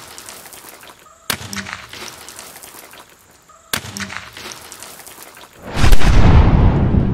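A rifle shot with its echo trailing off, heard twice, about a second in and again near four seconds in. From nearly six seconds in, a loud deep rumble swells up and keeps going, louder than the shots.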